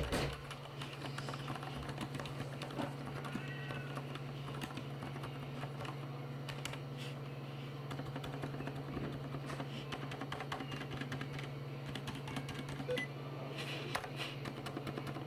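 Continuous fast typing on a Filco Majestouch2 mechanical keyboard with Cherry MX Silent Red switches and dye-sublimated keycaps: a dense, even run of soft keystrokes over a steady low hum. There is one louder knock right at the start.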